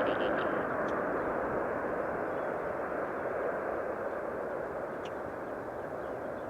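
Airbus A330 jet engine noise, a steady rush that slowly fades as the airliner moves away, with a few faint bird chirps above it.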